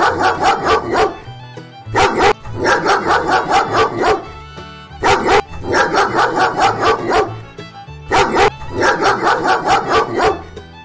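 Dog barking in repeated bouts of quick barks, about three seconds apart, over background fiddle music.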